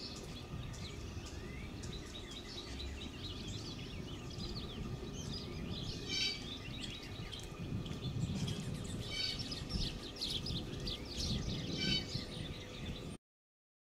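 Small songbirds chirping: many short, quick high calls and little rising notes, busiest in the second half, over a low steady background rumble. The sound cuts off suddenly near the end.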